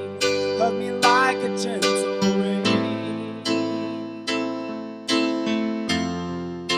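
Slow instrumental worship music with sustained chords, a new chord struck a little more often than once a second.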